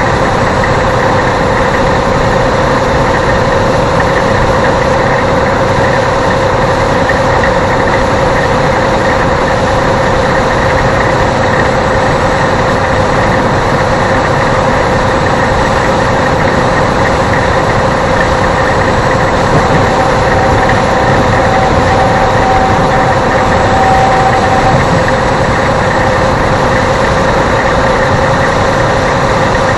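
Steady road and engine noise of a car driving at highway speed, heard inside the cabin through a dashcam microphone, with a steady humming tone running through it.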